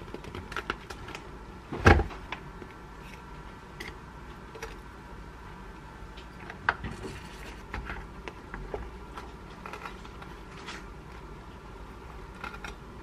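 Electric waffle maker's lid opening with one loud knock about two seconds in. Then light clicks and scrapes of chopsticks and a wooden stick prying rice-cake waffles off the hot grid plates, over a faint steady hum.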